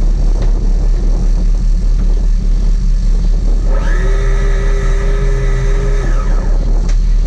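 Sport-fishing boat's engines running with a loud, steady low rumble. A steady high tone joins in for about two seconds in the middle.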